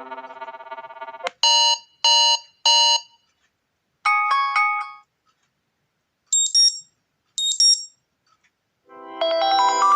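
Several different phone alarm tones from a Xiaomi Mi A2 Lite, each played briefly one after another. A melody fades out, then come a click and three quick identical chimes, a short tune, and two high chirps. A new melodic tone starts near the end.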